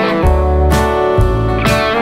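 Background music with a steady beat and a strong bass line, new notes starting about twice a second.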